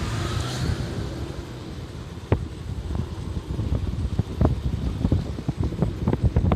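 A vehicle on the move: a steady low rumble with wind noise, and sharp knocks that come more often in the second half.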